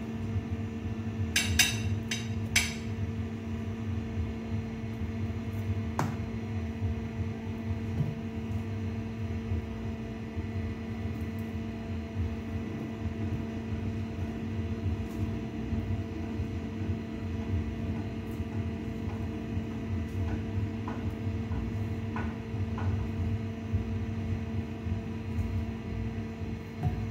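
Steady mechanical hum, like a kitchen appliance or fan running, with a few sharp clinks of a metal fork against a ceramic plate about one and a half to two and a half seconds in.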